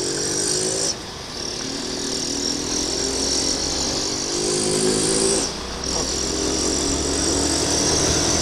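Single-cylinder engine of a Honda CB Twister 250F motorcycle pulling under acceleration, its pitch climbing, then dropping sharply twice, about a second in and near six seconds, as it is shifted up a gear.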